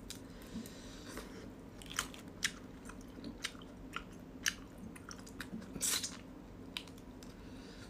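Close-up eating sounds of a person biting and chewing spicy crayfish tails: a scattered series of short, crisp clicks and smacks, the loudest about six seconds in.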